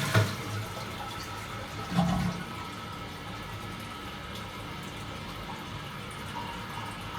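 Toilet flushing: the loud gush of the bowl emptying eases off about half a second in, with a short gurgle about two seconds in. Then water runs steadily as the tank refills.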